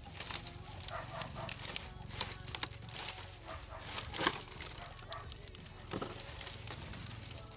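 Irregular scattered clicks and crackles with short animal calls, typical of farmyard animals such as hens.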